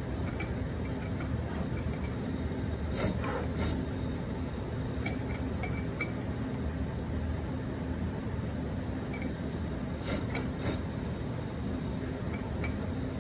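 A CNC plotter's motors run with a steady hum as the machine drives a paint pen across card. A few sharp clicks stand out, two about three seconds in and a quick cluster about ten seconds in.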